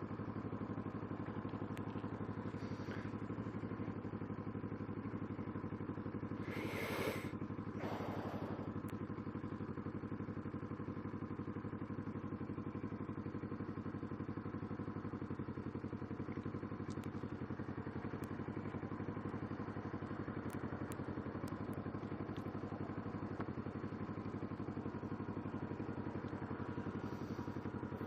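Kawasaki Ninja 650R's parallel-twin engine idling steadily at an even pitch. Two short hissing sounds come about seven and eight seconds in.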